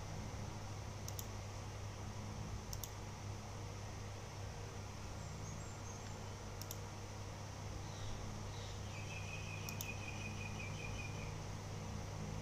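Steady low hum and hiss of room tone, with four faint sharp clicks spread through it and a short high chirping warble about nine seconds in.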